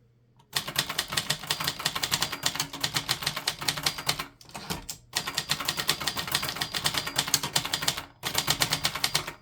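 Brother Deluxe manual portable typewriter being typed on quickly: a rapid run of sharp key and typebar strikes with two brief pauses, one near the middle and one near the end. The machine is not very insulated, so the strikes come through clattery and unmuffled.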